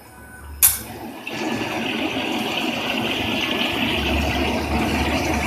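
Induction hardening machine working a small shaft: a sharp hiss about half a second in, then water rushing steadily through the machine as the shaft heats red in the copper coil.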